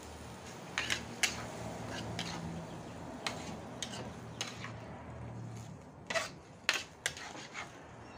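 Metal spatula clinking and scraping against an aluminium wok while vegetables are stirred, with about nine sharp clinks at uneven intervals, over a steady low rush.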